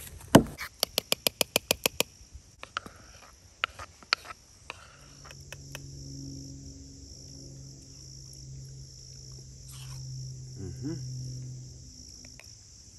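A single sharp axe blow into a log about half a second in, followed by a quick run of sharp clicks, over a steady chorus of crickets. Later scattered clinks of a spoon in a metal mug, and a plane engine droning overhead for several seconds.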